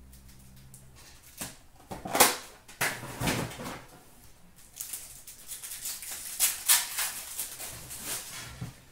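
Hockey card packs being slid out of a cardboard blaster box and handled, their wrappers crinkling and rustling in a run of short, irregular bursts, loudest about two seconds in.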